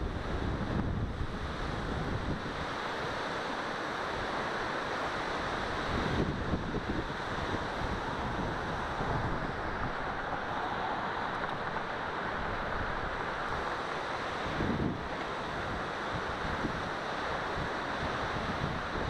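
Wind buffeting a handlebar-mounted action camera's microphone during a bicycle ride: a steady rushing noise with low rumbling gusts that come and go.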